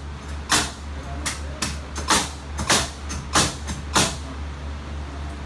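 Framing lumber being nailed: about eight sharp knocks in a quick, irregular series that stop about four seconds in, over a steady low hum.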